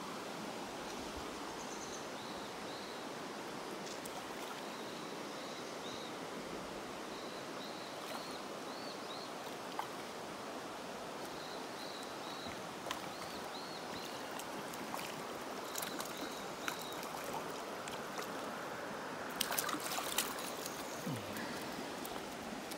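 Shallow river running over a gravel bed, a steady rush of water, with faint high chirps repeating through the first half. About three-quarters of the way in comes a flurry of splashes and clicks as a small rainbow trout is brought into a landing net.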